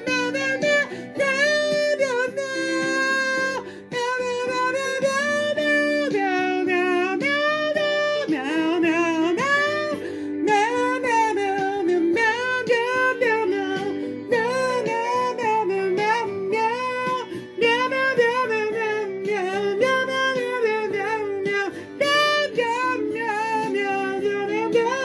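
Acoustic guitar playing with a wordless sung melody over it, the voice gliding and bending in pitch.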